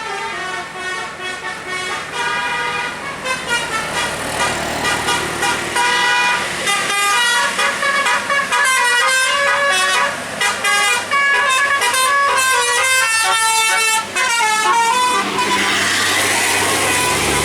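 Bus 'telolet' musical air horn playing a quick melody of stepping tones, several notes sounding together, over the bus's running engine. Near the end the horn stops and a steady rushing noise takes over.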